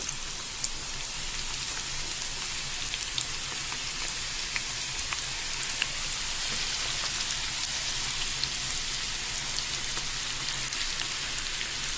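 Onion pakoda batter deep-frying in a kadai of hot oil: a steady sizzle with many small scattered crackles.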